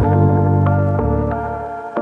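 Background music: a held keyboard chord over a bass note, with no drums, fading toward the end.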